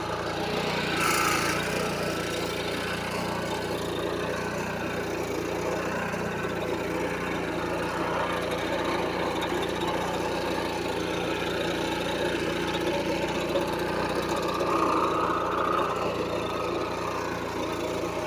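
Small petrol engine of a portable rail-cutting machine clamped on a rail, running steadily.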